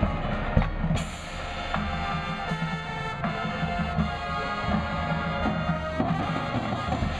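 High school marching band playing: brass holding sustained chords over drums, with a sudden bright crash about a second in.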